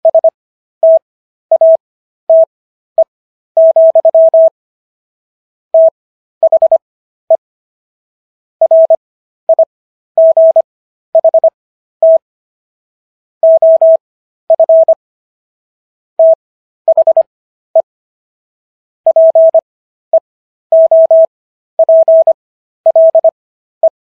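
Morse code as a single steady beep tone keyed on and off in short dots and longer dashes, with longer gaps between letters and words. It spells out the text of the US Second Amendment, sent at 25 WPM character speed with Farnsworth spacing to 15 WPM overall.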